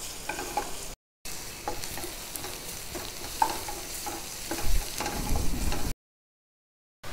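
Chopped onion, garlic and ginger sizzling in hot oil in a stainless-steel pan, stirred with a wooden spatula that scrapes and taps against the pan. The sound drops out to silence briefly about a second in and again near the end.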